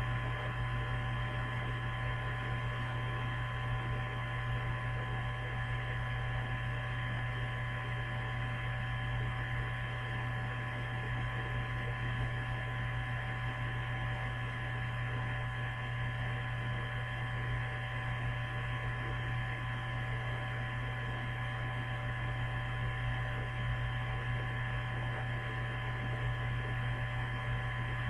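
Steady electrical hum with a few fainter high steady tones over it, unchanging throughout.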